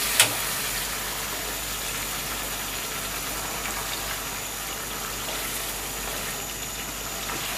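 A spatula stirring boiled split chickpeas into a pot of thick curry over a steady hiss from the stove and pot, with one sharp knock against the pot just after the start.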